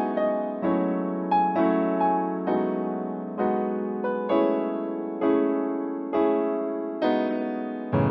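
Instrumental break of a slow ballad: an electric piano strikes chords about once a second, each one ringing out and fading before the next.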